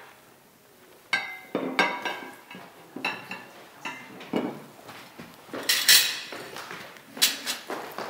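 Dishes and cutlery clinking and knocking as a dining table is laid: a string of sharp clinks starting about a second in, some ringing briefly.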